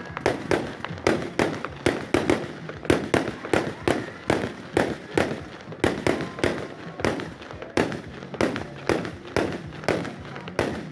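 Fireworks exploding in rapid succession, several sharp bangs a second with no let-up.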